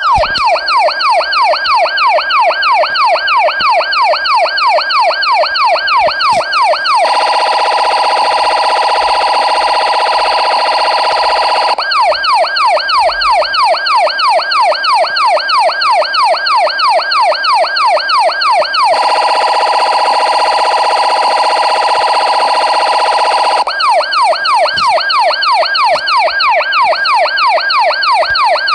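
Electronic police siren sounding loudly in a fast yelp, a rising sweep repeated about three times a second. Twice it switches for about five seconds to a faster, buzzing warble, then returns to the yelp.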